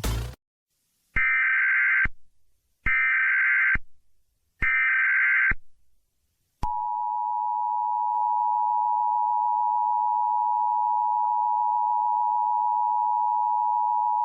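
Emergency Alert System header: three bursts of SAME data tones, each about a second long, then the steady two-tone EAS attention signal (853 and 960 Hz) from about six and a half seconds in.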